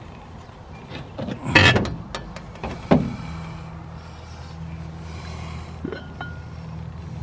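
Solar oven's glass lid being opened: clattering knocks about a second and a half in and a sharp knock at about three seconds. Near the end, a light ceramic clink as the lid of the ceramic bean pot is taken hold of.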